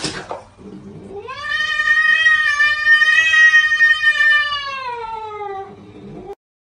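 A cat's long drawn-out yowl: one call of about five seconds that rises at the start, holds steady, then falls in pitch and cuts off suddenly.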